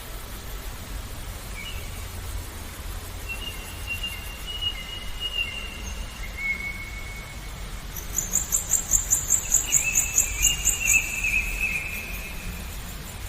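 Songbirds singing: long thin whistled notes, then, starting about two-thirds of the way in, a loud high trill pulsing about five times a second for a few seconds, over a steady low background noise.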